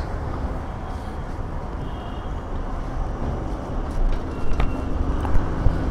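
Steady rumble of road traffic, with motor vehicles running and a few faint clicks.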